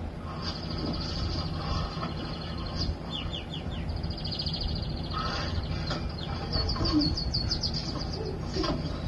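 Bird-like chirps, trills and quick whistling tweets, with a fast run of short whistles about seven seconds in, over a low steady hum, coming from a television soundtrack.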